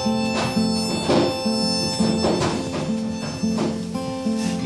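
Acoustic guitar strummed in a slow rhythm, with a harmonica playing held notes of a gentle melody over it.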